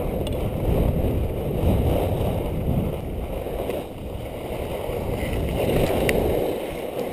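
Skis running fast over packed, chopped-up snow, with wind buffeting a GoPro Hero2's microphone: a loud low rushing and scraping that swells and eases with speed. A sharp tick about six seconds in comes as the skier falls into the snow, and the rush dies away after it.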